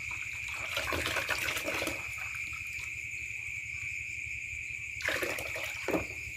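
Water from a garden hose pouring into a partly filled plastic basin, a steady trickling splash, with a brief louder splash near the end as the hose is moved through the water. A steady high-pitched drone runs behind it.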